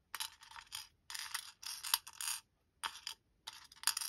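Small resin nail charms clattering and scraping against a plastic tray as long fingernails push them around, in a run of short rattles with a few sharp clicks.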